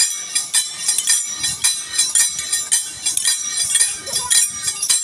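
Kamsale, the hand-held bronze cymbals of the Karnataka folk dance, clashed together in a quick, even rhythm. Each stroke makes a sharp metallic clink with a bright ring.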